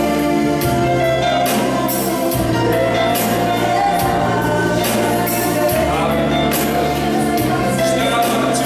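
Live worship music: an electronic keyboard plays sustained bass notes and chords that change every second or two, under singing.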